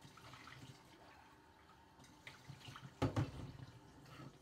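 Kitchen tap running faintly as a bowl is rinsed in the sink, with a few clicks and one sharp knock about three seconds in.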